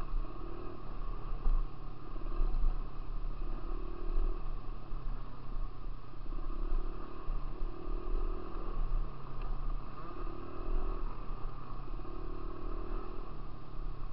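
Dirt bike engine running while being ridden, its pitch stepping up and down every second or two with the throttle, over a steady low rumble.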